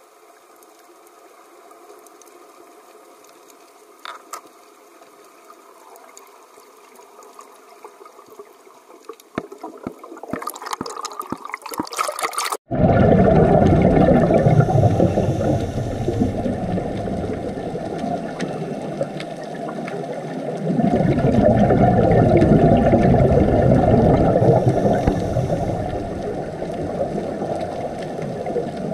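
Muffled underwater water noise. At first a faint hiss with scattered clicks that thicken into a crackle. Then, after a sudden cut about halfway through, a loud, dull rushing and gurgling that swells twice.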